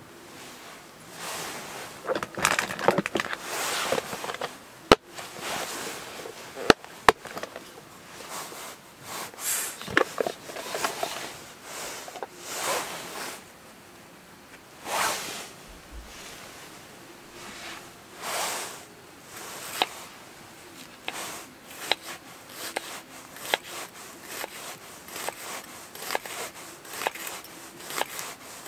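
Camp gear being handled: rustling and sharp knocks as things, including a folding knife, are set down on a wooden cutting board. Near the end come small ticks of a knife cutting an onion on the board.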